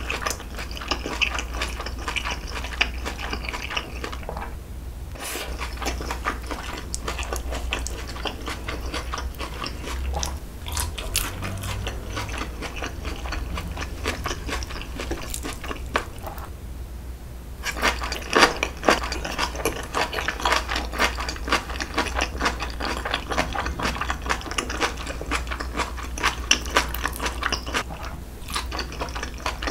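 A person chewing food close to the microphone: a dense run of small wet clicks and smacks, pausing briefly about four seconds in and again around sixteen seconds, and stronger after that. A steady low hum runs underneath.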